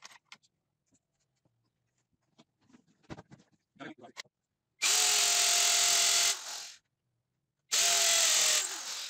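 Electric hand drill running in two bursts, about a second and a half and then about a second, its motor whine winding down after each release of the trigger. A few light knocks and handling sounds come before it.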